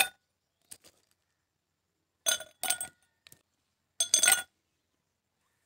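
Ice cubes dropped off a spoon into empty glass tumblers, clinking against the glass: a clink at the start, two more about two seconds in, and a quick cluster about four seconds in.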